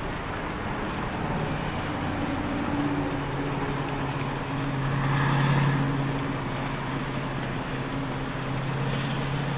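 Motor vehicle engine humming steadily, growing louder to a peak about halfway through and then easing off, over a steady hiss of background noise.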